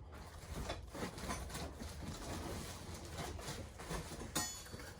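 Cardboard box and packing being handled: scattered soft rustles, scrapes and light knocks, with a sharper crinkle about four and a half seconds in.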